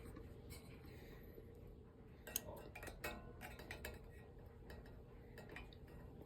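Faint clinks and taps of metal parts being handled, with a sharp click about two and a half seconds in and a few more about three seconds in.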